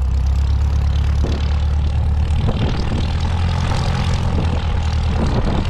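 Light aircraft's piston engine and propeller running steadily with a low drone; the note shifts slightly about halfway through.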